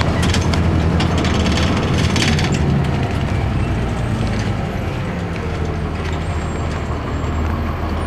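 Cabin sound of a 2002 Blue Bird CS transit bus: its Cummins ISC six-cylinder diesel engine runs with a steady low drone. A busy spell of rattling and clicking from the bus body and fittings comes in the first couple of seconds, and the sound eases slightly after about three seconds.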